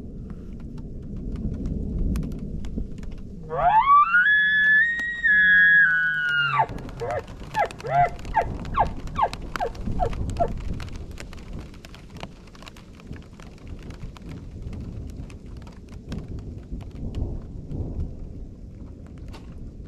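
A bull elk bugling: a whistle that climbs steeply and holds high for about three seconds over a low growl, then breaks into a string of about eight short falling chuckles. Rain and wind noise run underneath.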